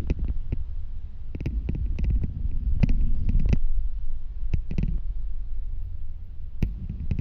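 Low, steady rumble of a moving city bus heard from inside, with a scatter of sharp clicks and knocks from rattling parts, several of them bunched together around the middle.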